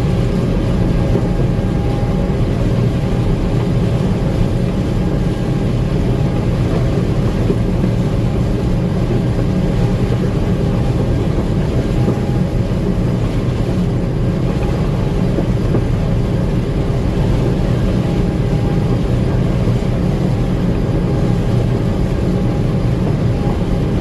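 Gleaner M2 combine running steadily under load while harvesting corn: a constant, loud machine rumble with a faint steady whine over it.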